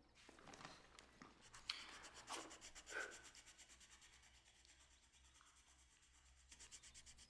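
Near silence, with faint rubbing and scratching: a few soft scrapes in the first three seconds, then fainter.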